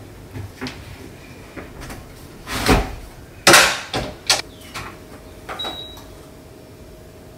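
Front-loading AEG washing machine being loaded and shut: a series of knocks and clunks from its door and drum, the loudest about three and a half seconds in. A short high beep from the control panel follows as its buttons are pressed, a little before the end.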